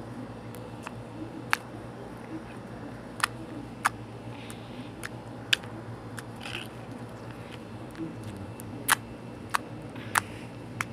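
Rainbow slime being squeezed and pressed by hand, giving irregular sharp pops and clicks about once a second, with a few short, soft squishing sounds. A steady low hum runs underneath.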